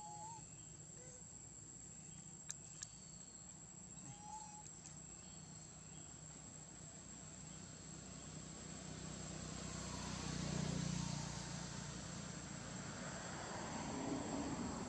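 Steady high-pitched drone of forest insects, with a couple of faint short chirps early on. About ten seconds in, a broad rushing noise swells and fades and is briefly louder than the insects.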